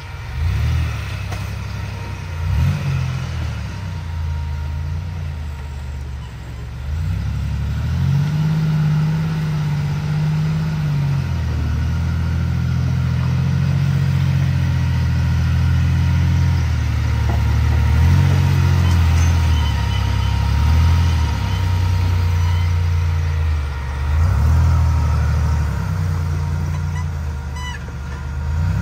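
Off-road vehicle engine revving in repeated pulls, its pitch rising and falling several times and holding steady for a few seconds in between, as on a slow trail or rock-crawling climb.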